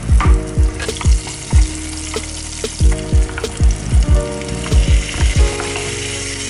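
Sliced onions sizzling in hot oil in a frying pan, stirred with a wooden spoon, then marinated chicken pieces tipped in to fry with them. Background music with a thumping beat plays over the sizzle.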